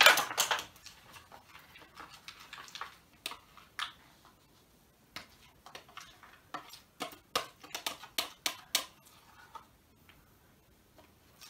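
Metal spoon stirring thick homemade slime in a plastic bowl: irregular clicks and short scrapes of the spoon against the bowl, mostly stopping near the end.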